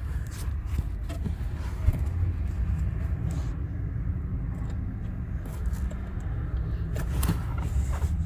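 Steady low rumble with a few light clicks and taps scattered through it, as a battery ground cable is handled.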